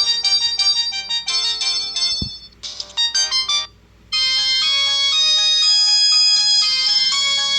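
Samsung GT-E2120 mobile phone ringtones. A quick synthesized tune of short notes stops about two seconds in, followed by a click and a brief snatch of another tune. After a moment of quiet, a new ringtone with longer held notes starts about four seconds in.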